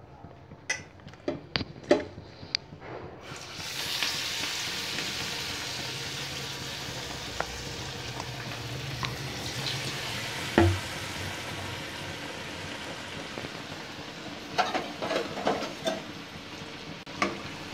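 Besan-battered bread slices (bread pakoras) sizzling steadily in hot oil in a kadhai. The sizzle starts suddenly about three seconds in, after a few light clicks. A single sharp knock comes about ten and a half seconds in, and there are scattered light clinks near the end.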